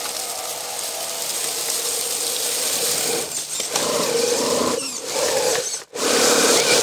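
The small electric motor and gears of an FMS Jimny RC crawler whine as it drives over dry leaves, with the leaves rustling under its tyres. From about halfway the whine wavers in pitch. Near the end it briefly drops away, then comes back louder.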